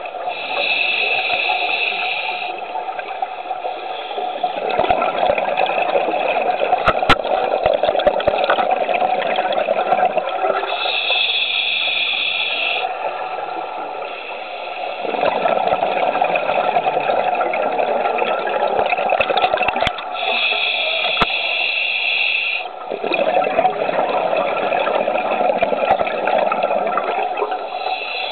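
Scuba diver breathing through a regulator underwater: a short hissing inhalation, then a long bubbling exhalation, repeating about every ten seconds, three breaths in all.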